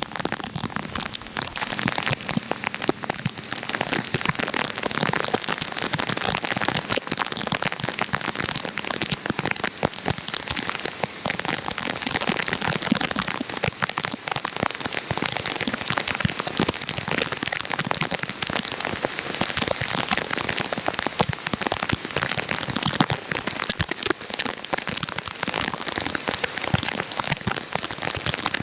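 Steady rain pattering, a dense, even crackle of many drops.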